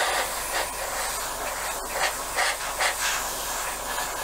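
Airbrush spraying sand-coloured paint over the model's surface: a steady hiss of air and paint that swells briefly several times.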